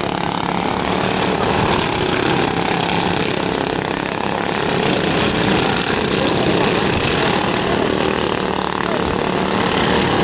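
Several racing riding lawn mowers running at speed around a dirt oval, their small engines blending into one steady engine noise that swells and eases slightly as they pass.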